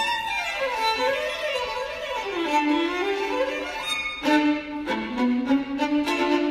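Violin playing a melody that winds downward from high notes to low ones over the first couple of seconds, then settles into low sustained notes with a few sharper bow strokes near the end.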